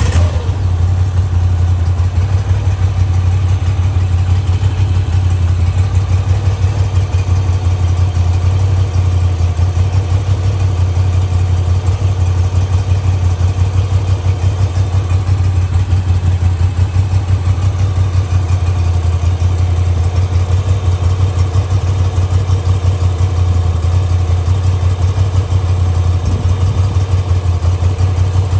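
A 2024 Moto Guzzi V85 TT's 853 cc air-cooled transverse 90° V-twin idling steadily in neutral, with no revving.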